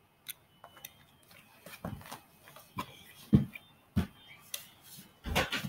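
Scattered knocks, thumps and rustles of someone moving about close to the microphone, about half a dozen sharp knocks spread through, the loudest a little past the middle and near the end.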